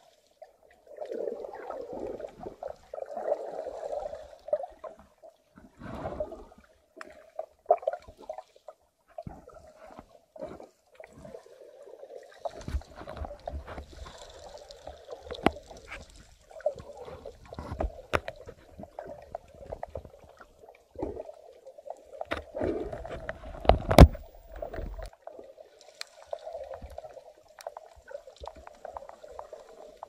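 Muffled underwater water noise picked up by a submerged camera: sloshing and gurgling with many scattered clicks and knocks, one loud knock about three-quarters of the way through.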